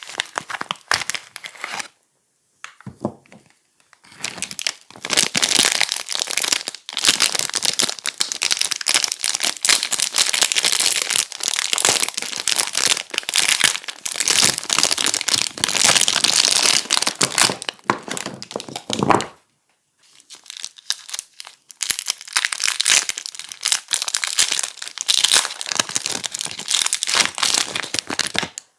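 Packaging being crinkled and pulled open by hand as soap bars are unwrapped: a dense run of crinkling and crackling with a few short pauses.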